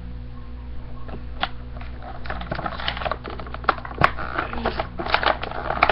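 Packaging of Nerf foam darts being handled and opened by hand: crinkling with scattered sharp clicks and snaps, busier from about two seconds in.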